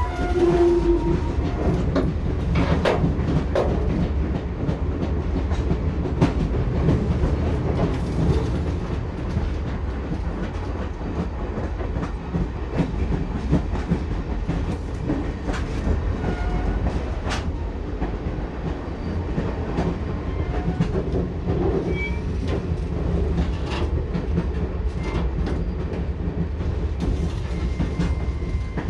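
Passenger train wheels clattering over the rails, heard from inside the carriage: a steady low rumble of running with irregular knocks and clicks throughout.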